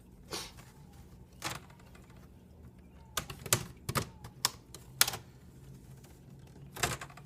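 Screen bezel of an Acer Chromebook 15 being pried off around its edges, its retaining tabs snapping loose in a series of irregular sharp clicks, the loudest about five seconds in.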